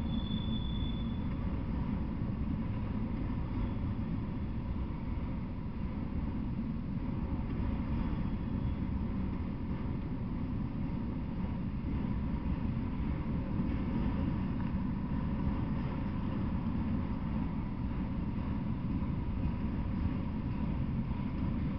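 Freight train of autorack cars rolling past at steady speed: a continuous low rumble of wheels on rail, with a brief faint high squeal in the first second.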